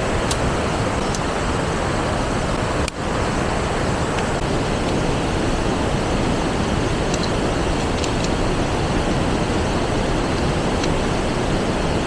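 Steady rush of a shallow river flowing over rocks and rapids, with a few faint clicks on top.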